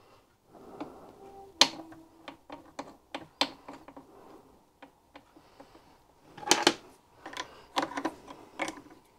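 Light metallic clicks and taps as a brass sight-glass oil pump is handled and screwed into its port by hand, with a sharper click about one and a half seconds in and a quick cluster of clicks near six and a half seconds.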